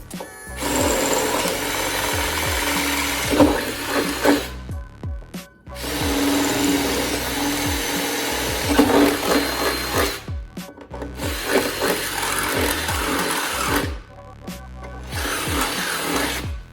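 Power drill running in four bursts of a few seconds each, with short pauses between, boring holes through metal for a shifter mounting bracket.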